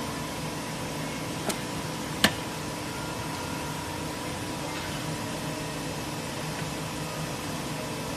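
Mini welding machine switched on and idling: a steady electrical hum and fan noise with a few faint steady tones, broken by two sharp clicks close together near the start, the second louder.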